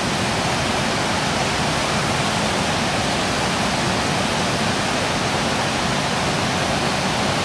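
A rocky stream rushing over stones, a steady, even rush of water.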